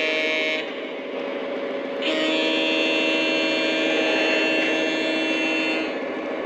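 Lionel O gauge model diesel locomotive sounding its horn: the end of one blast about half a second in, then a long blast of about four seconds. A steady running noise from the train carries on underneath.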